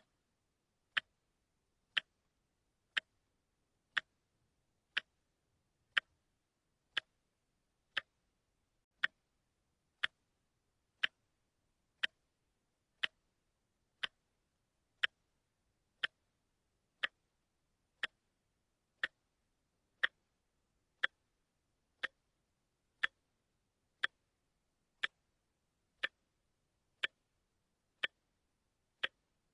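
Wristwatch ticking steadily, one short sharp tick each second with silence between the ticks.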